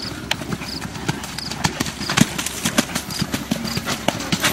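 Hoofbeats of several horses cantering on the dirt footing of a show arena, a quick uneven patter of strikes that grows louder about halfway through as horses pass close.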